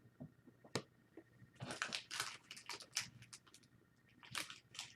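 Faint, scattered rustles and light clicks of small objects being handled on a desk: a single click about a second in, a short cluster of rustles a little later, then a few more isolated clicks.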